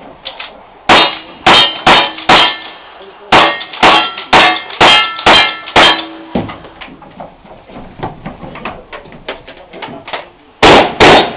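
Rapid gunshots at a shooting stage, each followed by the metallic ring of steel targets: about ten quick shots in the first half. Then a run of softer clicks and clanks, and two more loud shots close together near the end.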